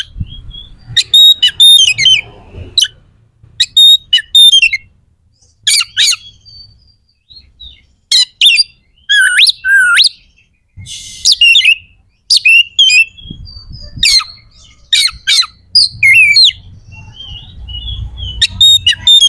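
Oriental magpie-robin (kacer) singing loud, harsh phrases of sharp, sweeping notes and rasps, broken by short pauses. This is the fierce, rough-toned song that bird keepers play to rouse rival magpie-robins.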